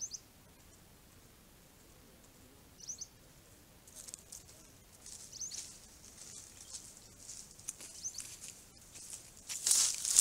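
Two brief high bird chirps, then rustling and scuffing that grows from about 4 s in and is loudest near the end, as a chacma baboon walks over dry ground right up to and past the trail camera.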